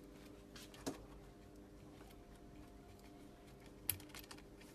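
Faint clicks and ticks of a car display's circuit board and housing being handled and pressed by hand, with two sharper clicks about three seconds apart, over a steady low hum.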